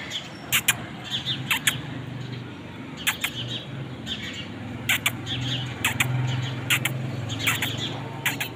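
Small birds chirping: short, high chirps in quick clusters, over a steady low hum.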